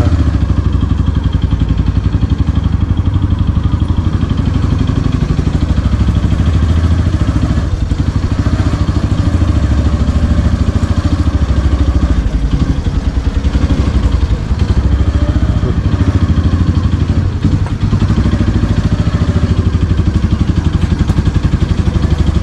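Motorcycle engine running steadily while the bike is ridden, heard from the rider's seat, with a rapid, even pulse.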